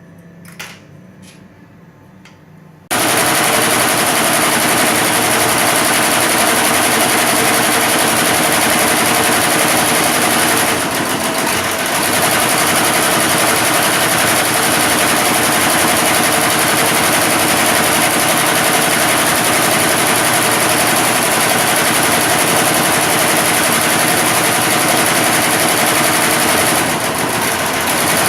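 Computerized embroidery machine starting up suddenly about three seconds in and stitching at high speed, a loud, dense, rapid clatter of needle strokes. It dips briefly twice before carrying on.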